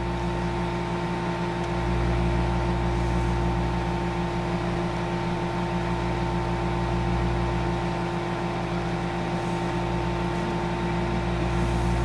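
Microwave oven running a heating cycle: a steady electrical hum that does not change.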